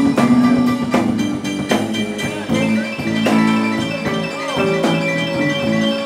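Live blues band playing: guitar and other pitched instruments over a drum kit keeping a steady beat, with the drum hits a little under a second apart.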